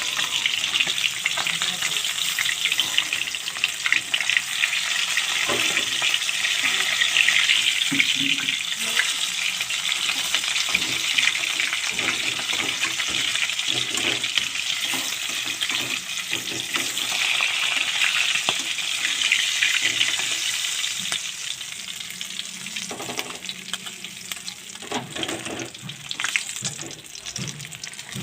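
Fish pieces sizzling as they fry in hot oil in a kadai, a dense steady hiss with occasional light knocks. The sizzling dies down noticeably about three quarters of the way through.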